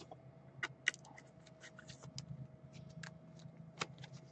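Trading cards being handled on a table: a scattering of small, irregular clicks and taps, over a faint steady hum.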